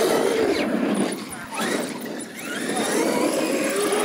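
Traxxas X-Maxx electric R/C monster trucks racing on dirt: the brushless motors whine, rising and falling in pitch as the drivers throttle on and off, with tyres working the dirt.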